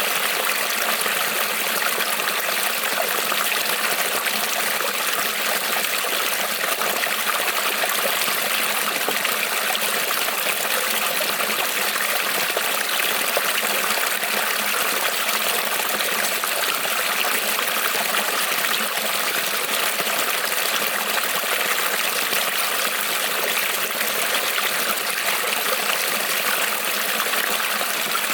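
Creek water rippling and trickling over stones, a steady, even rush.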